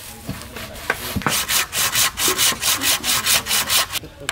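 Hand saw cutting a wooden timber post with quick, even back-and-forth strokes, about four or five a second, after a few sharp knocks on the wood.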